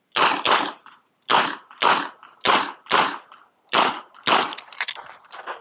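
Smith & Wesson 929 9mm revolver fired rapidly in pairs, about eight shots with short ringing after each, as the shooter runs a timed match stage.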